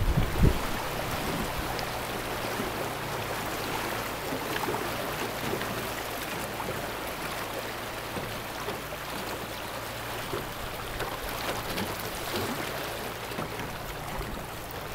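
4 hp Mercury outboard motor running steadily, a low even hum under the rush of river water churning past the canoe's hull through riffles.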